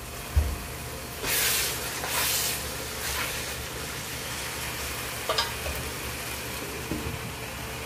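Minced meat sizzling and steaming in a pot as it is stirred with a wooden spoon, with two loud hissing swells in the first few seconds. The spoon knocks against the pot a couple of times about five seconds in.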